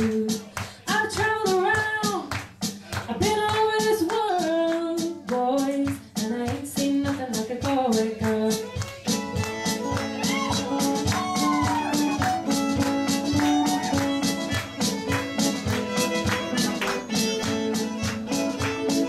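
Live band playing with drums: a woman sings for the first half, then a violin takes over the melody about halfway through.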